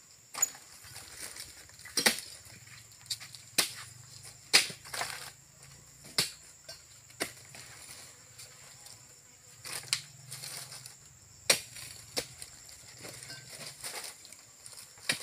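Oil palm fruit bunches being tossed one after another into a hanging wire weighing basket, each landing with a sharp crunching thump, a dozen or so at irregular intervals.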